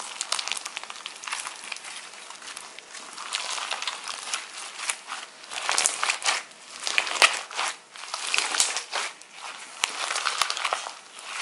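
Hands squeezing and kneading a thick slime packed with foam beads, making a dense, uneven run of small clicks and pops.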